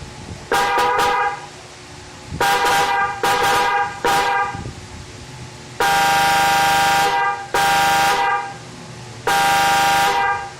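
Mitsuba Arena 3 electric car horn sounding in a series of about seven blasts. Four are short and three, in the second half, are longer, about a second each. Each blast trails off briefly after it stops, from the horn's echo function.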